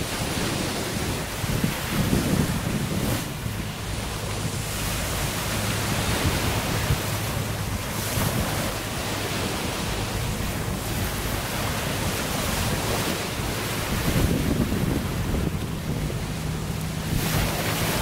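Small waves breaking and washing up a pebbly beach, swelling and easing, with wind buffeting the microphone.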